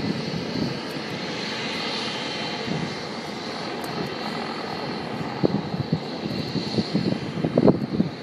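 Agusta A109 helicopter's twin turbine engines running: a steady high whine over a rushing roar, with uneven low rumbling that grows heavier near the end.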